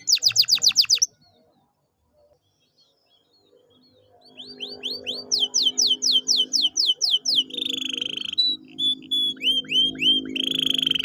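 Canary singing: quick runs of whistled notes that each sweep downward, broken off about a second in, silent for about three seconds, then resuming with repeated sweeping notes and two buzzy rolling trills near the middle and the end.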